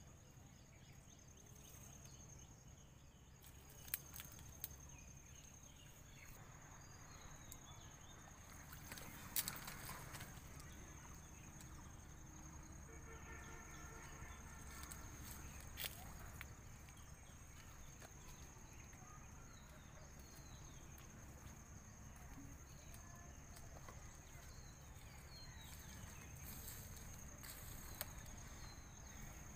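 Near silence: faint outdoor background with a steady high-pitched whine and a low hum, broken by a few sharp clicks.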